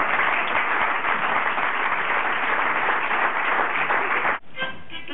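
Audience applauding, cutting off abruptly about four seconds in.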